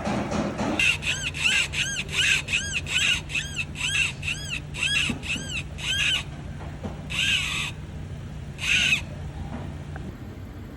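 Toyota Fortuner running with a steady engine hum and a repeated high-pitched squeak, about three a second for several seconds, then two longer squeaks. It is the abnormal noise the vehicle is being checked for.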